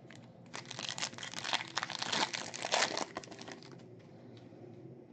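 Foil trading-card pack wrapper being torn open and crinkled by hand, a dense run of crackles and tearing for about four seconds before it quiets down.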